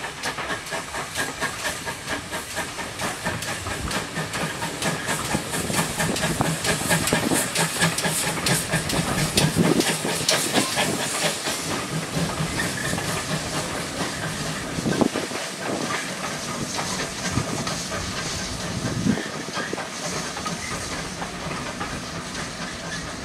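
Steam locomotive hauling a passenger train away, its exhaust chuffing rapidly over a steady hiss of steam, loudest about ten seconds in. Then the coaches roll past, with a few heavier knocks of wheels over rail joints.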